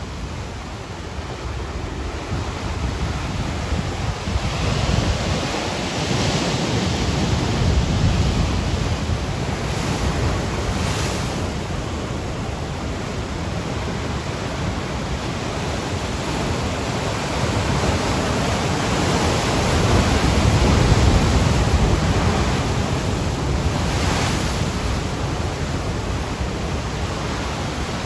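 Ocean surf: waves breaking and washing up the shore in a continuous rush that grows louder and softer in long swells, with several hissing crashes as waves break.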